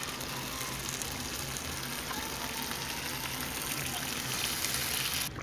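Watery tomato-and-potato gravy sizzling in a frying pan, a steady hiss with faint crackles that cuts off suddenly near the end.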